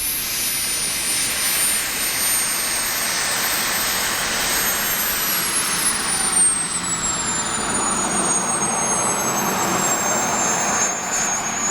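Twin JetsMunt Merlin model turbine jet engines of a large radio-controlled English Electric Lightning running: a loud, steady jet rush with a high turbine whine whose pitch slides slowly downward in the second half.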